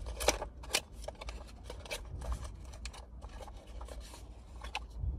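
Pistol cartridges and their packaging being handled: irregular small clicks, taps and rubbing as loose rounds are picked up and shifted about.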